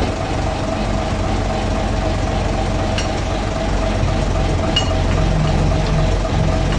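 Guy Arab LUF bus's underfloor diesel engine running steadily at low revs as the bus moves slowly, heard from inside the cab, with a steady whine over the engine hum.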